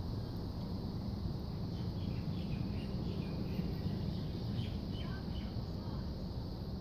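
Outdoor ambience of a steady low rumble, with a string of short, high bird chirps through the middle.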